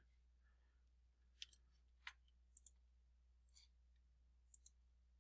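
Faint computer mouse clicks, a handful of short clicks, several in quick pairs, against near silence.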